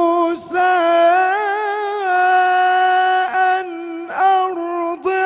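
A man reciting the Quran in the melodic, drawn-out tilawa style, holding long notes that he ornaments with wavering and bending pitch, with a few short pauses between phrases.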